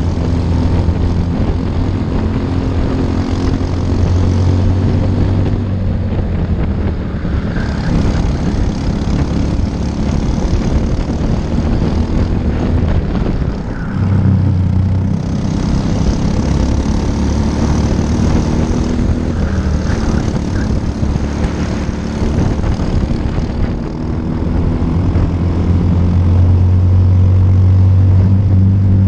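Briggs & Stratton LO206 single-cylinder four-stroke kart engines at racing speed: the onboard engine's note rises and falls with the throttle. It dips briefly twice, lifting for corners, with the engines of karts close behind mixed in.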